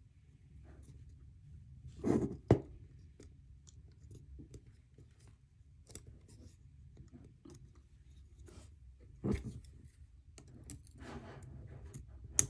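Small clicks, taps and scrapes of a disassembled Zero Tolerance 0562 folding knife's metal and carbon-fibre parts being handled and fitted back together, with a louder cluster of clicks about two seconds in, another about nine seconds in, and a sharp click near the end.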